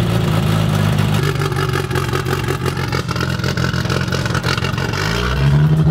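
Turbocharged 2.3-litre Ford four-cylinder engine, swapped into a Datsun 240Z, idling steadily just after being started for the first time in a few months. About five seconds in, the revs rise and it gets louder.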